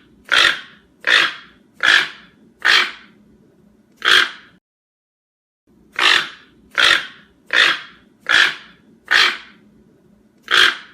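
Toucan giving loud, harsh croaking calls, about one every 0.8 seconds: a run of six, a pause of about a second, then six more.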